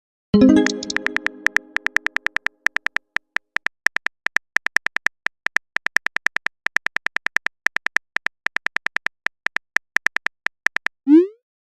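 Text-messaging app sound effects: a short chime, then a long run of rapid keyboard tap clicks, each with a brief beep, ending in a quick rising swoosh as a message is sent.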